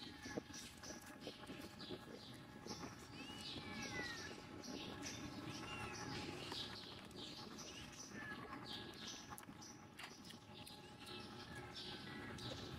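Small kitten mewing faintly, several short high calls.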